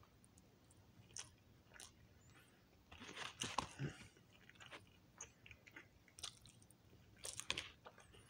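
A person chewing and biting food close to the microphone: soft, crunchy mouth clicks, with louder bursts of chewing about three to four seconds in and again near the end.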